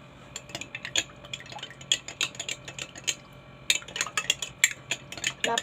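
Spoon stirring lemon juice and honey in a drinking glass, clinking against the glass over and over. The clinks come faster and closer together from a little past halfway.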